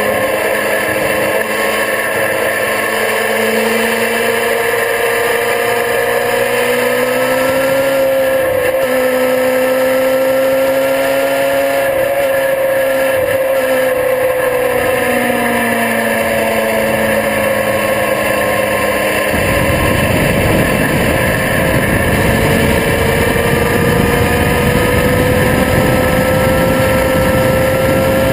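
Sport motorcycle engine running at speed, its pitch rising and falling gently as the throttle changes through the corners, over steady wind rush. About two-thirds of the way in, wind buffeting on the microphone gets much louder and stays that way.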